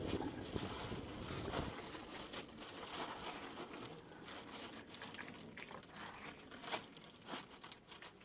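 Irregular crunching and rustling, loudest in the first two seconds and thinning out after.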